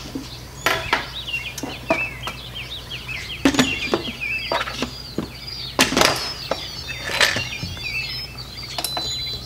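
Instant Pot lid being set onto the pot and twisted shut, with a series of sharp clacks and knocks of plastic on metal. A bird chirps over and over throughout.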